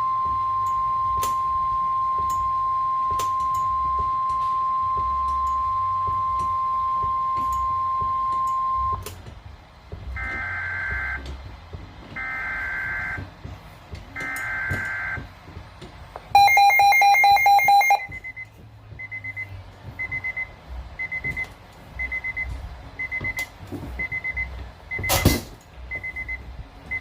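Weather radio warning alarm: a steady single tone near 1050 Hz held for about nine seconds, then three roughly one-second bursts of digital data tones, typical of a SAME alert header. A loud harsh electronic buzz follows for under two seconds, then a short high beep about once a second, with a sharp click near the end.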